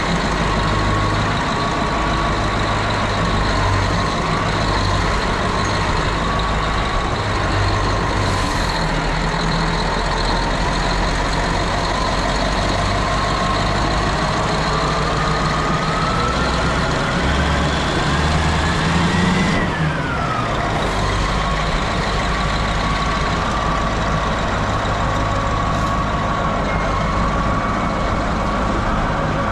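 Cat 631E scraper's diesel engine running steadily, with a thin high whine. The whine rises slowly in pitch from about halfway through and falls away abruptly about two-thirds of the way in.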